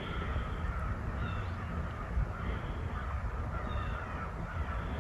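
Birds calling outdoors, a series of short repeated calls several times over the few seconds, over a steady low rumble.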